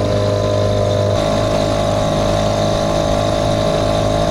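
Small outboard motor pushing an inflatable dinghy along at slow trolling speed, running steadily. Its note steps up slightly about a second in.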